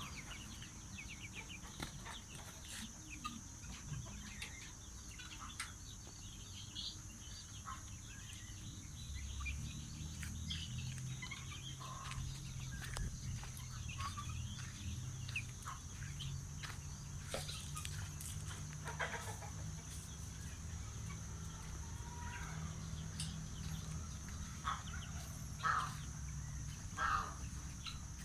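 Farmyard fowl clucking and calling in short scattered notes, a few louder calls near the end. A steady low hum comes in about a third of the way through and fades out shortly before the end.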